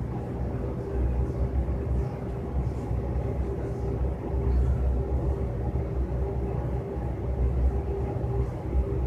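Steady low rumble with a faint even hum of a building's ventilation system, rising and falling slightly in loudness.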